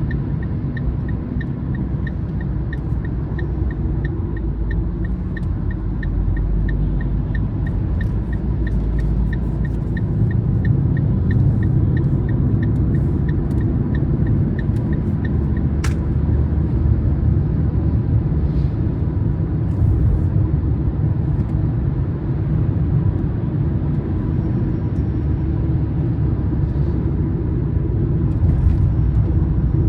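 A car driving at speed: steady low road and engine rumble. A regular light ticking, under two a second, runs through the first half and stops, followed by a single sharp click about halfway through.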